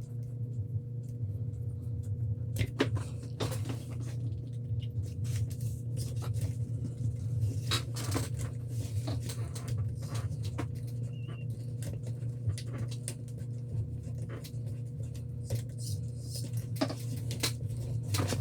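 Scattered small clicks and taps of a hand tool and plastic and metal parts as screws are worked out of an RC crawler's front axle, over a steady low hum.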